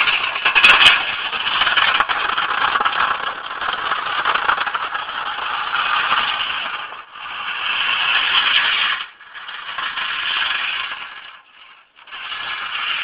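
Homemade radio-controlled snow plow truck driving and plowing on pavement, with a rough rattling drive noise that cuts out briefly about 7, 9 and 11 seconds in as the throttle is let off.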